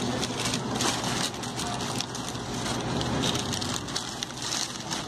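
Irregular crinkling and rustling of sandwich wrapping paper and plastic food-service gloves as a sandwich is handled, over a steady low hum.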